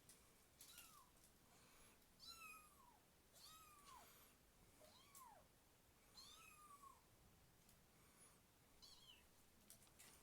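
Kitten meowing faintly: about six short, high-pitched meows that rise and fall in pitch, coming every second or two. Light clicks sound between them.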